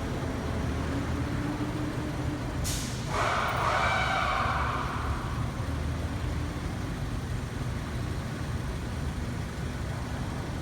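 Car engine idling with one fuel injector not working, so that cylinder misfires and the idle runs rough. About three seconds in, a loud hiss with a whistling tone rises over it for about two seconds.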